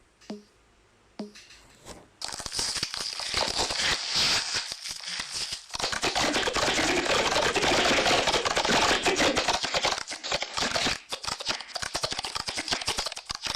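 Slime being squished and worked by hand: a few single clicks, then from about two seconds in a dense, continuous crackling and clicking.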